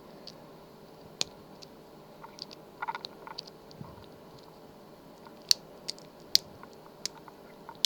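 Lock pick and tension wrench working the pins of a small lock: sparse sharp metallic clicks and brief scratchy scraping.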